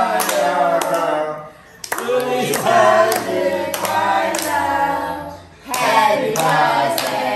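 Several people singing a birthday song together, with hands clapping along, in phrases broken by two short pauses.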